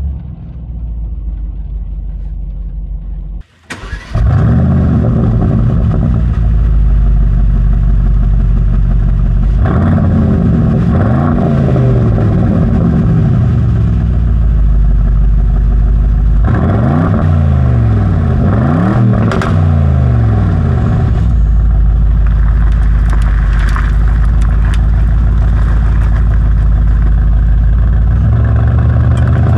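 2025 Aston Martin Vantage's 4.0-litre twin-turbo V8 idling, first heard briefly inside the cabin, then close up at the exhaust tips. It is revved twice in quick rising and falling sweeps, then settles back to a steady idle.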